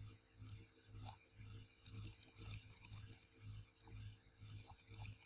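Faint clicking of a computer mouse and keyboard, with quick runs of clicks about two seconds in and again near the end, over a low hum.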